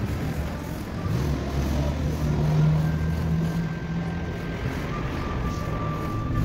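A motor vehicle's engine running, a low hum that grows louder about two to three seconds in and then eases off.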